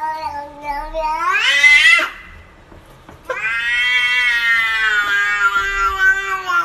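Domestic cat meowing in two drawn-out calls. The first lasts about two seconds and rises sharply in pitch at its end. After a pause of about a second comes a long, nearly level meow of over three seconds that sags slightly in pitch.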